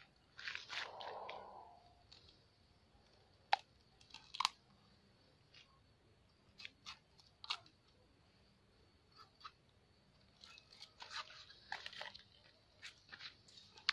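Machete cutting into a young green coconut, slicing and prying at the soft husk and white flesh: a series of faint, irregular crunching cuts and knocks, more frequent in the last few seconds.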